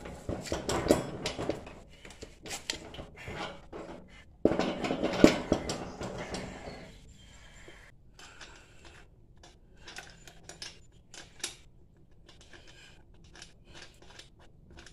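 Metal clinks and clattering as a go-kart wheel is handled and worked onto its three hub bolts. The clatter is busy for about the first half, loudest a few seconds in, then thins out to scattered light clicks.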